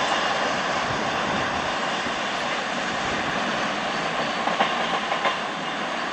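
Freight train of tank wagons rolling along the track as its tail end moves away: a steady rumble of wheels on rail, with a few sharp wheel clicks near the end.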